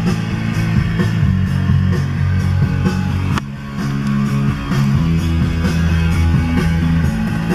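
Rock music with guitar playing through a car stereo, dipping briefly about three and a half seconds in.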